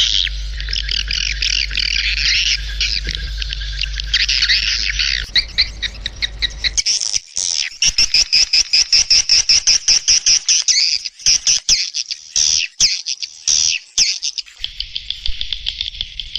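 Swiftlet lure call recording: dense, high twittering of swiftlets over a low hum, changing about seven seconds in to a fast run of sharp separate chirps, several a second, then back to dense twittering near the end. It is the kind of calling sound played from speakers to draw swiftlets into a swiftlet house.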